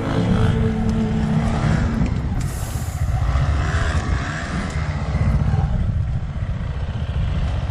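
Enduro dirt bike engine running under way on an off-road ride, a steady rough rumble. The last notes of background music die away in the first two seconds.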